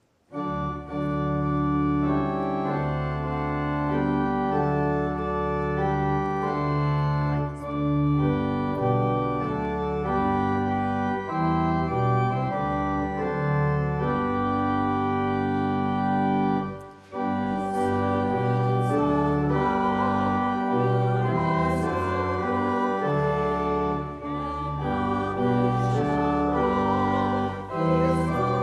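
Church organ playing sustained chords, starting just after the benediction's Amen, with a short break about 17 seconds in.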